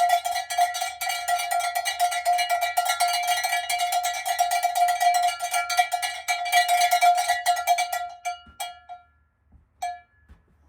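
A small hand bell rung rapidly and without pause: one clear ringing note with overtones, struck many times a second. The ringing stops about eight seconds in, and a few single strikes follow.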